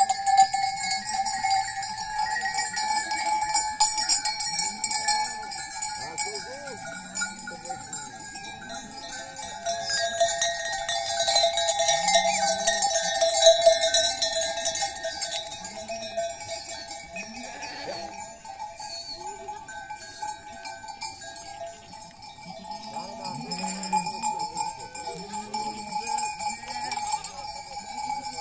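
Bells on a flock of sheep clanking and ringing continuously, with sheep bleating here and there; the ringing grows louder for a few seconds in the middle.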